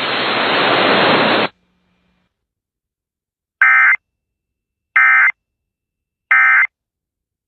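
A hiss of static for about a second and a half, then, after a short silence, three short buzzy data bursts about 1.3 seconds apart: the Emergency Alert System end-of-message code that closes the flash flood warning broadcast.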